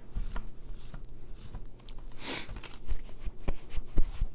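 Paper and card being handled on a craft table: a few small taps and knocks, with a brief rustle about two seconds in.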